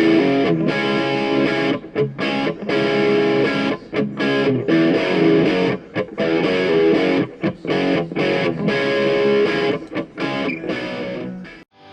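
Background music led by a distorted electric guitar, which cuts off suddenly near the end.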